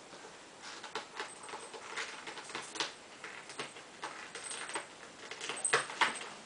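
A cat's claws raking and picking at the sisal of an arched scratcher toy: irregular scratchy rasps and clicks, the loudest two near the end.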